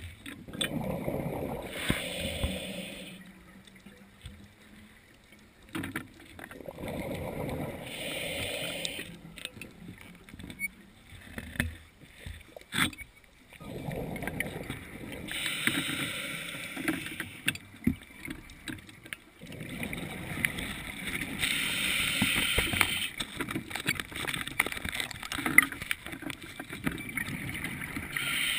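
Scuba diver breathing through a regulator underwater: about four breaths, each a low bubbling rush of exhaled air with a higher regulator hiss, with small clicks between.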